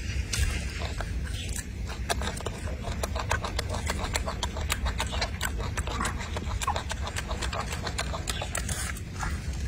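Golden snub-nosed monkey chewing a peeled orange: a quick, irregular run of wet clicks and smacks over a steady low rumble.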